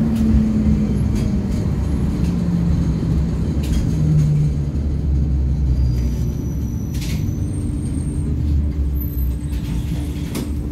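LVS-86K tram heard from inside as it slows for a stop: a steady low rumble of the running gear, with a whine that falls in pitch over the first few seconds as the speed drops. A few sharp clicks, and a steady hum from about two-thirds of the way in.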